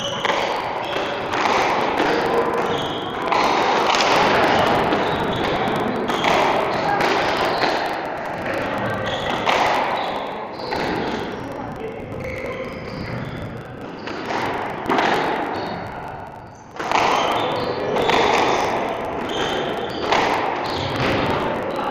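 Squash rally: a squash ball is struck by rackets and smacks off the front and side walls in a quick, uneven series of sharp hits, with a brief lull about three-quarters of the way through.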